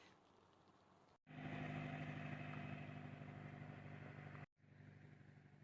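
An engine running steadily at an even pitch for about three seconds. The stretch starts and stops abruptly at edits in the footage.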